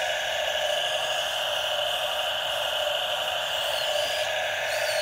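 Steady high-pitched buzzing drone from the electric motors of a Huina RC excavator, running as the arm and bucket move.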